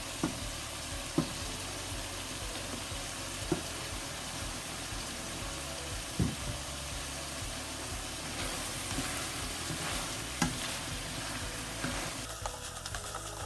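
Pork and vegetables sizzling in a stainless steel pan while sliced eggplant is added and stirred in, with a few sharp knocks of the utensil or pieces against the pan.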